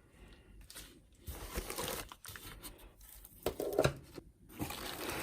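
Packaging being handled during an unboxing: irregular rustling, crinkling and tearing of wrapping, with a louder rustle about three and a half seconds in.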